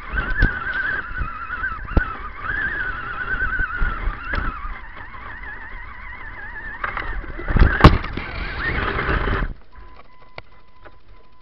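RC crawler's electric motor whining, its pitch wavering up and down as the truck pushes through reeds and brush, with sharp knocks from stalks and branches hitting it. The motor cuts out suddenly about nine and a half seconds in, leaving only a faint steady tone with a few ticks.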